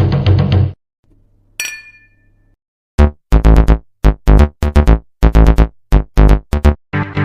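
Electronic synthesizer music in chopped-up pieces. A dense looping pattern stops abruptly under a second in. After a pause comes a single bright metallic chime hit that rings out. Then a run of about a dozen short, punchy bass-heavy synth stabs plays, and a busy synth pattern starts up near the end.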